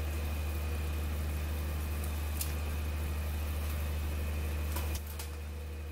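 A steady low mechanical hum, with a few faint clicks; the hum drops in level suddenly about five seconds in.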